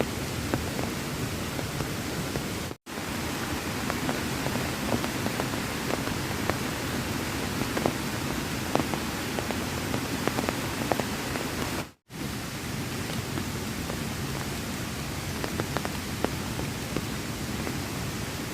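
Heavy rain falling steadily, with many separate drops ticking sharply. The sound cuts out for an instant twice, about three seconds in and again near twelve seconds.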